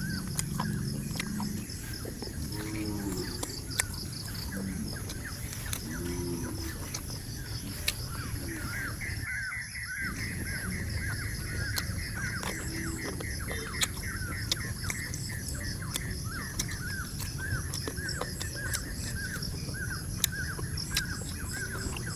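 Countryside ambience: a steady, rapidly pulsing high insect drone, with a run of short chirping calls repeating a couple of times a second and a few low calls in the first seconds.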